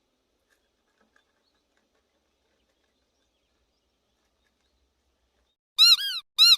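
Near silence, then, near the end, two loud, high-pitched animal calls in quick succession, each rising and then falling in pitch.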